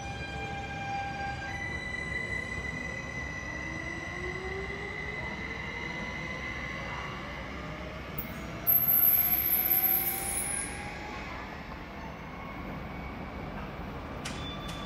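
An SOB Traverso electric multiple unit accelerating away, its traction drive giving a steady whine and pitches that climb slowly over a rolling rumble. About nine seconds in, a sharp high-pitched wheel squeal cuts in for about two seconds and is the loudest sound.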